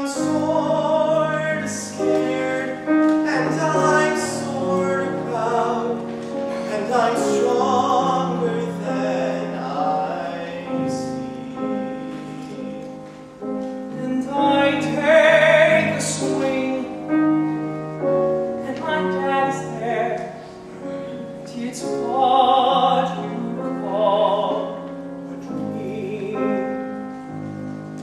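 A small group of male voices singing a musical-theatre song together, with piano accompaniment.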